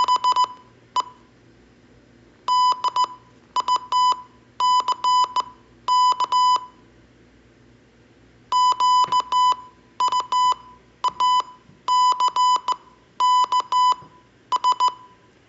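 Morse code played as a steady electronic beep tone: quick short and long beeps in clusters for letters, with a longer pause about halfway through between words.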